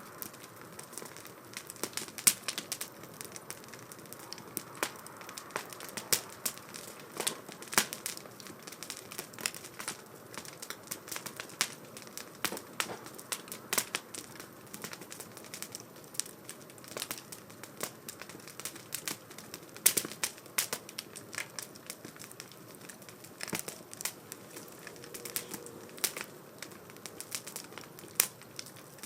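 Wood fire burning in a 2×4 STOVE wood stove, crackling with irregular sharp pops several times a second over a faint steady hiss; a few louder pops stand out, about two seconds in, near eight seconds and around twenty seconds.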